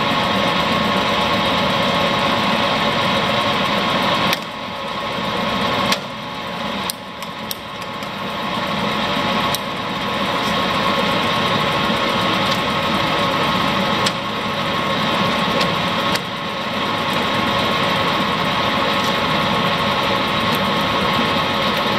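Warner & Swasey No. 3 ram-type turret lathe running under power with a steady whine. Several sharp clicks come as the apron's forward/reverse feed lever is shifted, and the running sound dips briefly after some of them.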